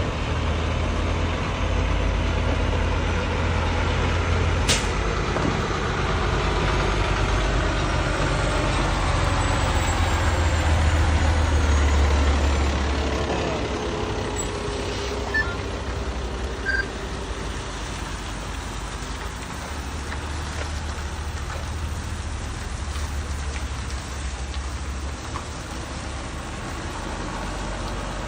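Heavy diesel truck running on the road under way, a steady low engine rumble with its pitch drifting down slowly through the middle. There is a single sharp click about five seconds in.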